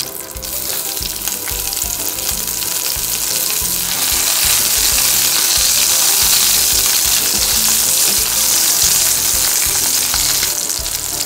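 Garlic cloves and spring onion whites sizzling in hot oil in a stainless steel wok, stirred with a spatula. The sizzle grows louder about four seconds in and eases off near the end.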